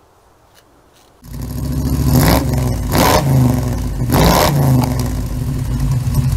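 An engine comes in about a second in and runs loudly, revved in three sharp blips.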